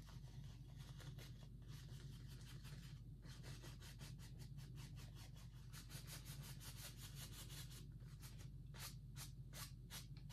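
A paintbrush rubbing lightly over a stretched canvas, blending wet oil paint in quick back-and-forth strokes several times a second; the strokes come harder and faster near the end. A steady low hum sits under it.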